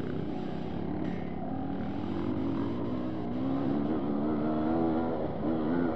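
Yamaha DT 200R two-stroke dirt bike engine under way, its pitch rising and falling with the throttle and getting louder in the second half.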